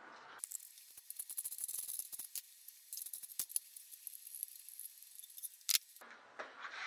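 Faint, irregular metallic clicks and rattles of a hand tool working a fastener, thick in the first couple of seconds and then scattered, with a sharper click near the end.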